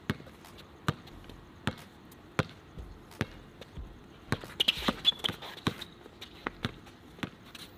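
Basketball dribbled on a hard outdoor court: bounces come roughly one every three-quarters of a second, with a quicker flurry of bounces about halfway through. The flurry carries a couple of short high squeaks.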